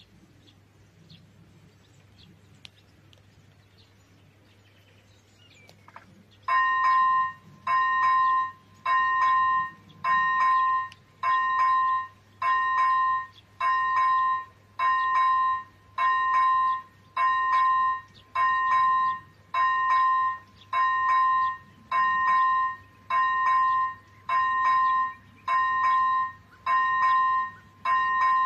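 Level crossing's ZV-01 electronic warning bell starts about six seconds in and rings loudly in an even pulse, about once a second, warning that a train is approaching. Before it starts, faint bird chirps.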